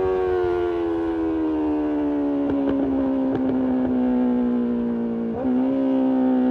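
BMW S1000RR's inline-four engine and exhaust at high revs while riding. The note's pitch slowly sinks as the bike eases off. About five seconds in there is a brief break in the note, and it picks up again slightly higher.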